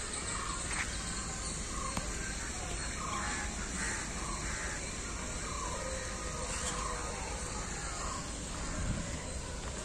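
Birds calling in trees: a series of short calls, several a second at times through the middle, over steady outdoor background noise.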